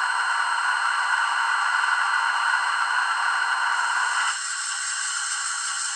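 Steam boiler blowdown sound effect played by the sound decoder of a Rivarossi H0 Union Pacific 4014 Big Boy model locomotive: a loud, steady rush of hissing steam. About four seconds in it drops to a thinner, higher hiss.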